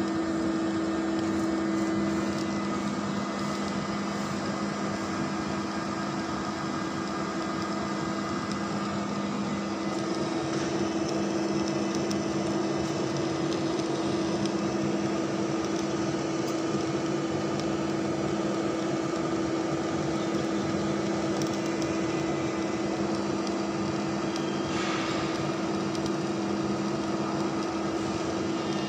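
Metal lathe running steadily with a tool cutting inside the bore of a large turned die piece: a steady machine hum under the even hiss of the cut. A short, brighter scrape of the cut comes near the end.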